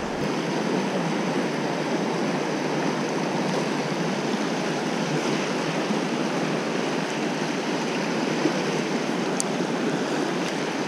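Rushing water of a shallow river rapid: a steady, even rush of white water.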